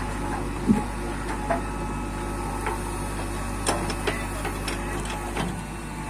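JCB backhoe loader's diesel engine running steadily as the backhoe digs a trench and lifts a bucketful of earth, with a few sharp clanks and knocks from the bucket and soil, the loudest about a second in.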